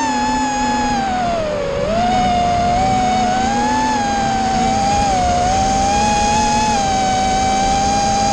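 FPV quadcopter's motors and propellers whining steadily from its onboard camera. The pitch dips about two seconds in, then climbs and wavers as the throttle changes.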